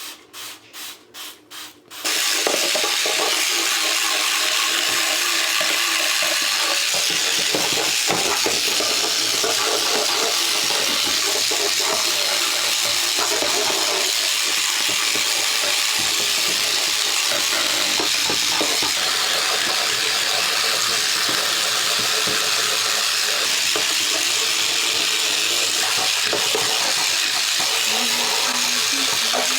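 A trigger spray bottle squirted rapidly several times a second, then, about two seconds in, a tap turned on and running steadily into the sink.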